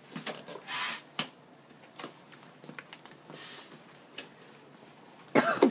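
Scattered light clicks and taps of handling, with a brief hiss about a second in, and a short loud vocal sound near the end.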